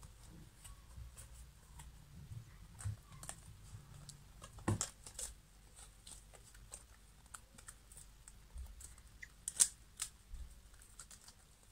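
Fingertips tapping on a smartphone touchscreen during a game: faint, irregular taps, with a couple of louder ones about halfway through and near the end.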